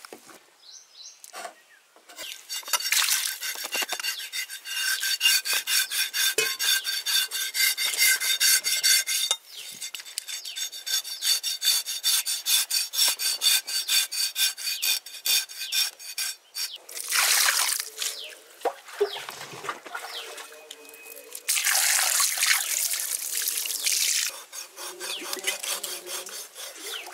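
Fast, steady scraping strokes with a metallic ring, broken briefly about nine seconds in and stopping around sixteen seconds, then two shorter, rougher scraping bursts.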